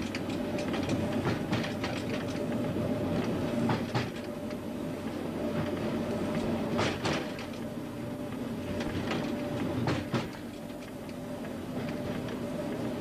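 Train running along jointed track, its wheels clicking over the rail joints at irregular intervals, sometimes in quick pairs, over a steady running drone, heard from the front of the train.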